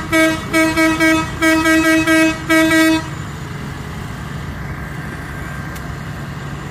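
A vehicle horn sounding a quick run of about nine short toots over three seconds, the last one longest. Heavy diesel engines run steadily underneath and continue after the horn stops.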